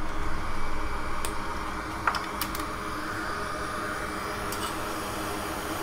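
A steady fan-like rushing noise that comes on suddenly, with a few light clicks of tools being handled at the bench.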